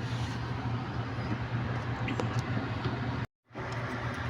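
Steady low electrical hum over even background noise, broken by a sudden split-second drop to silence about three seconds in.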